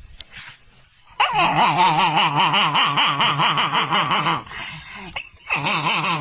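A dog whining and yowling in long, warbling stretches of quick pulses, twice, with a short break about four and a half seconds in.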